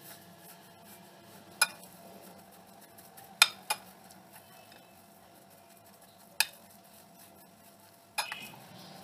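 A metal spoon stirring mashed potato in a cut-glass bowl, the soft mixing broken by a few sharp clinks of spoon against glass, about four spread out, and a brief scrape near the end.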